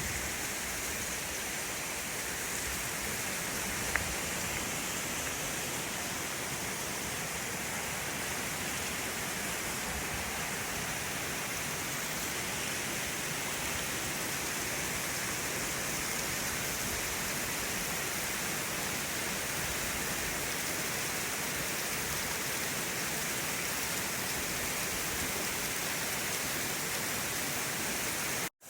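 Waterfall running: a steady, even rush of falling water, with one brief tick about four seconds in. The sound cuts off abruptly near the end.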